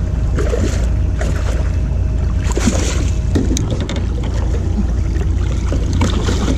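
A hooked striped bass being handled at the side of an aluminum jon boat: short bursts of splashing and knocking come and go over a steady low rumble.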